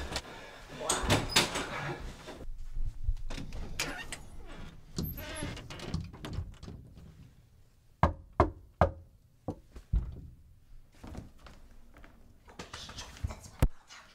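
Knocking on a front door: a quick run of about five sharp knocks some eight seconds in, amid fainter rustling and movement, with one sharp click near the end.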